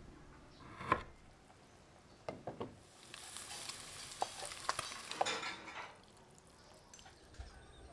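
A kitchen knife chopping fresh ginger on a wooden cutting board, a few sharp chops. Then raw rice is poured into a hot wok of frying garlic and ginger, sizzling with grains pattering for about three seconds.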